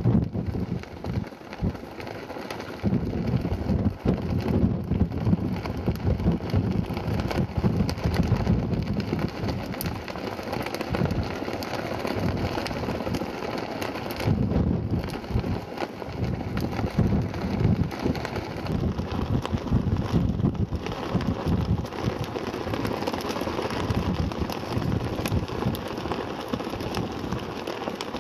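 Wind buffeting the microphone in strong gusts, a rumbling low pulsing over a steady rushing hiss.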